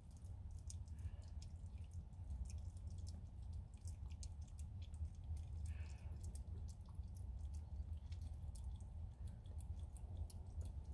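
Young kittens suckling and squirming, making many small wet clicks and smacks over a steady low rumble.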